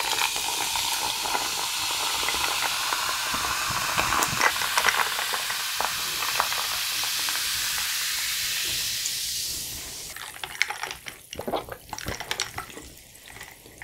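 bubly sparkling water poured from a can into a mug, fizzing with a steady hiss for about ten seconds, then dying down to a faint crackle of bubbles with a few clicking sips through a straw near the end.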